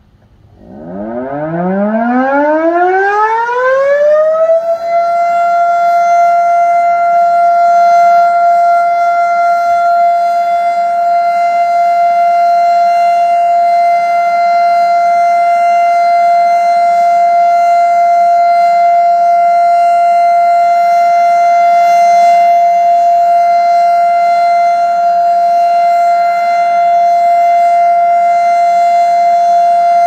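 GCS type 341 outdoor warning siren winding up from a low pitch over about four seconds, then holding one steady tone: the steady alert signal sounded during a siren test.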